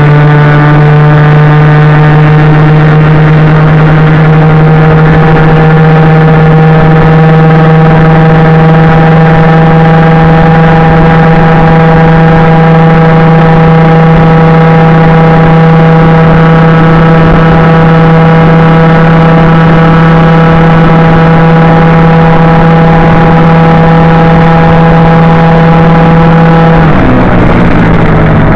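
Honda Gyro Canopy scooter engine running through a Moto Repair Garyuz II aftermarket exhaust, holding a steady drone at cruising speed. Near the end the pitch drops as the throttle closes.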